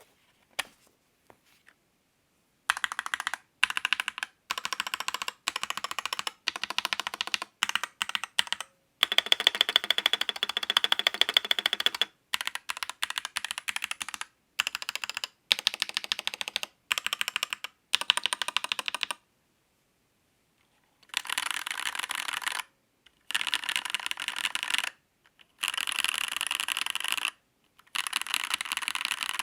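Typing on a Royal Kludge RK84 Limited Edition mechanical keyboard: fast runs of key clacks lasting a second or three each, broken by short pauses. Near the start and again about two-thirds of the way through there is a pause of a couple of seconds.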